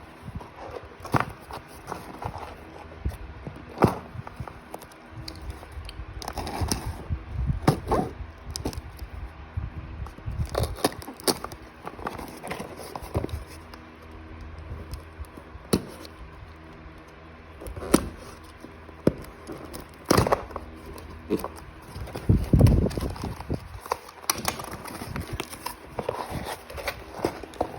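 Parcels and packaged items being handled on a surface: irregular taps and knocks, with stretches of rustling.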